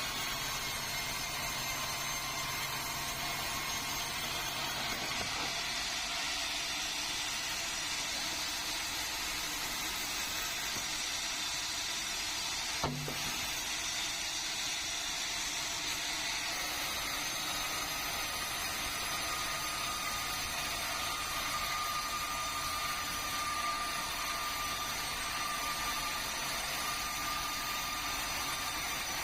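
Sawmill saw machinery running steadily, with one sharp click about thirteen seconds in.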